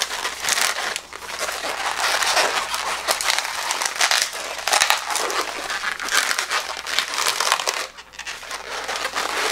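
Inflated latex twisting balloon being handled, rubbed and twisted between the hands, a continuous rubbing and creaking of latex, with brief lulls about a second in and again about eight seconds in.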